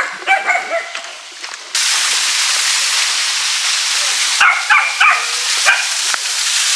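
A young dog barking: a few short yips at the start, then a quick run of about five barks a little past the middle. About two seconds in, a steady rushing hiss cuts in abruptly behind the barks.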